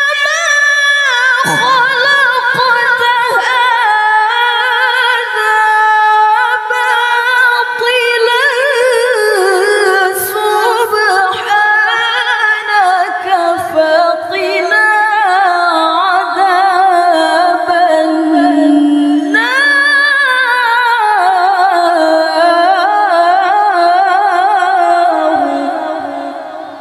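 A woman reciting the Quran in the melodic tilawah style, drawing out long melismatic phrases with rapid wavering ornaments, with only brief breaths between them. The voice fades away near the end.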